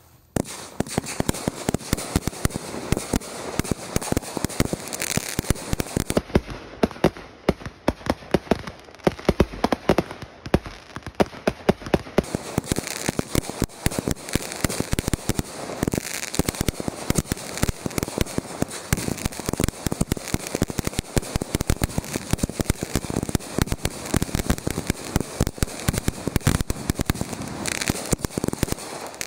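Consumer aerial firework cake firing: a fast, unbroken run of launch thumps and aerial bursts with crackling stars, starting abruptly after silence.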